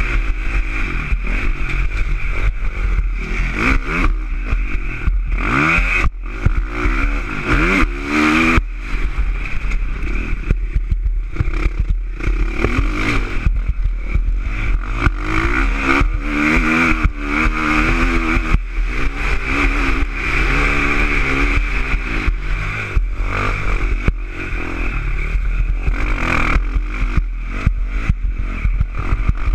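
2019 KTM 450 SX-F motocross bike's single-cylinder four-stroke engine, revving up through the gears and dropping off again and again as it is ridden hard around the track. The engine note rises in pitch many times, each rise lasting a second or two, over a steady low rumble.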